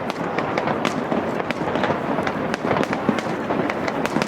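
Fireworks display going off continuously, a dense rumble of bursts with many sharp cracks, several a second.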